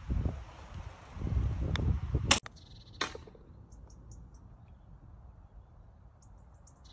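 Wind rumbling on the microphone, with two sharp clicks of a golf club striking balls. It cuts off suddenly to a quieter stretch with another click and faint, high bird chirps.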